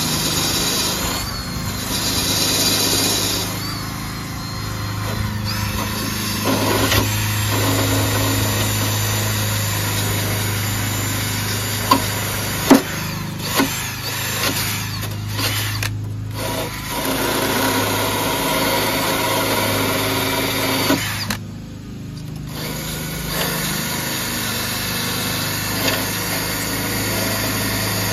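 DeWalt cordless drill spinning a wire wheel brush against the mower deck frame, scrubbing off paint and dirt. The motor runs steadily, with a few sharp clicks near the middle, and stops for about a second roughly three-quarters of the way through before starting again.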